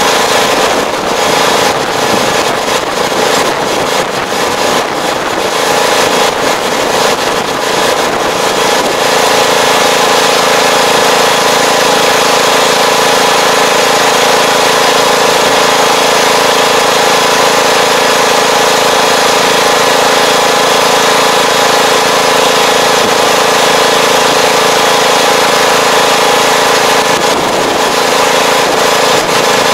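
Farm tractor engine running steadily at a constant speed as the tractor drives across the field with a mounted fertilizer applicator.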